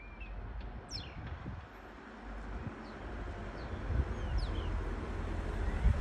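A flock of starlings in a treetop giving short, thin whistles that slide downward, several scattered through a few seconds, over a low rumble of wind on the microphone.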